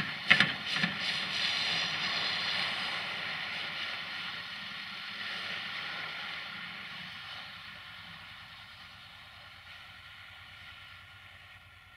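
SAME Taurus 60 DT tractor's diesel engine running as the tractor drives away, fading steadily. A few loud clanks about half a second in.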